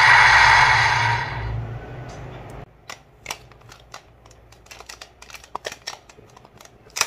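DX Two Side Driver toy belt's electronic transformation sound playing from its small speaker and fading out over the first two and a half seconds, then scattered light clicks of the plastic belt and stamp being handled, with a sharper click near the end.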